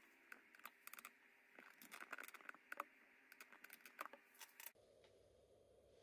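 Faint, irregular small clicks and ticks over a quiet hiss. They stop abruptly about three-quarters of the way through, leaving only a low, steady hum.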